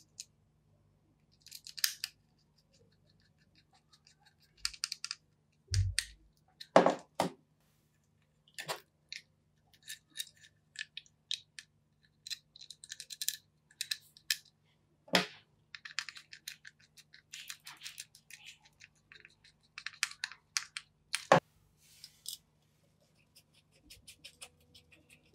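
Small metal and plastic parts of a Makita HM0811 demolition hammer being handled and fitted by hand, giving scattered clicks and light scrapes. A few sharper knocks come through, two close together about a quarter of the way in, one near the middle and one later on.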